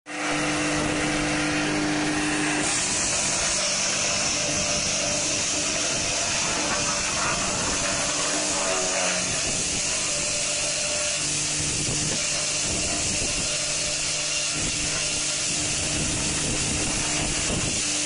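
Belt-driven wood chipper-shredder running with its electric motor: a steady loud whir and hum of the spinning rotor and motor, starting right at the beginning.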